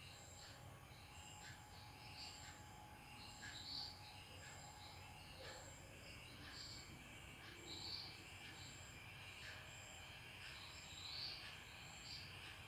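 Near silence with faint ambient insect chirping: a short high chirp repeating steadily about three times every two seconds, with scattered softer chirps around it.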